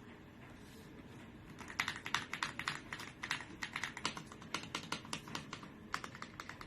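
Fast typing on a mechanical keyboard fitted with JERRZI Seashells linear switches, a rapid run of keystroke clacks starting about two seconds in.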